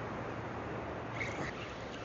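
Steady surf and wind noise on the beach, with a brief high chirping a little over a second in.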